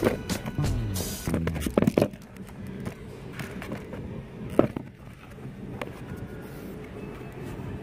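Cardboard board books being handled and opened, giving a few sharp taps and knocks, over music playing in the background.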